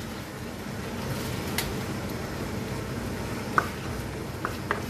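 Chicken simmering in oyster sauce in a nonstick wok, a steady low sizzle, while a plastic spatula stirs it and clicks against the pan a few times, most sharply a little past halfway.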